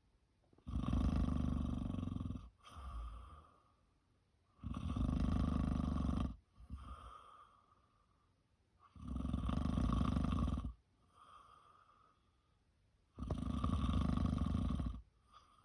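Snoring in a slow, regular rhythm: four long, loud snores about four seconds apart, each followed by a shorter, fainter breath.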